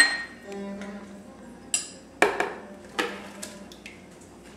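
A utensil knocking and clinking against a bowl several times, with sharp ringing strikes, as yogurt is added and whipped.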